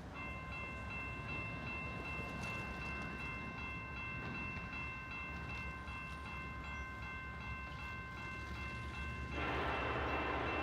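Railroad crossing bell ringing steadily, about three strikes a second. About nine seconds in, a train horn starts blowing over it, louder.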